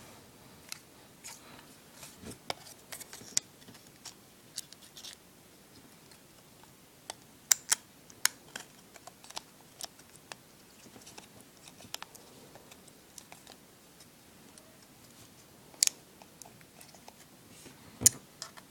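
Irregular small clicks and taps of iPod parts and a small tool being handled during hand repair, with a few sharper clicks standing out.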